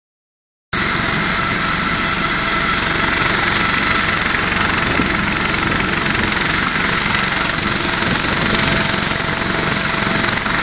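Eurocopter AS365 Dauphin twin-turbine helicopter running on the ground with its rotor turning, a steady turbine whine over the dense rotor and engine noise, at ground running before take-off. The sound cuts in abruptly under a second in and then holds level.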